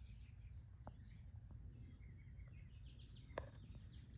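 Near silence outdoors: faint bird chirps over a low steady background rumble, with one sharp click a little over three seconds in.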